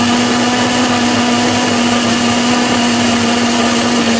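Electric blender running steadily at constant speed, grinding chunks of onion into a paste; a loud, even motor whine that holds one pitch throughout.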